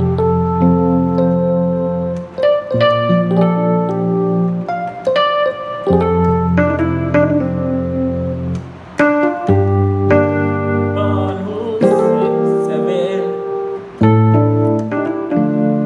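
Keyboard playing slow gospel-style chords in the key of F: a full low chord struck every three to four seconds and held, with right-hand melody notes and passing chords moving above it.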